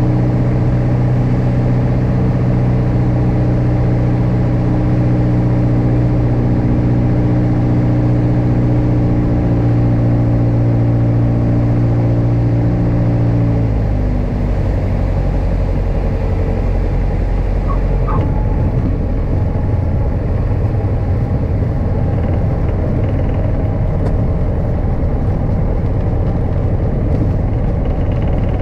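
Single-engine piston aircraft heard from the cockpit: the engine drones steadily at approach power, then is throttled back about 13 seconds in, leaving a low rumble of the landing roll on the runway.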